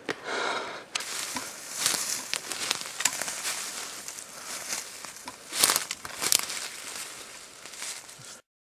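Footsteps crunching through dry leaf litter and twigs on a forest floor, with clothing rustling: an irregular crackle with a few louder snaps past the middle. It cuts off abruptly near the end.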